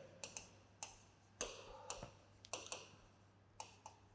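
Faint, irregular taps and short scratches of a marker writing on a whiteboard.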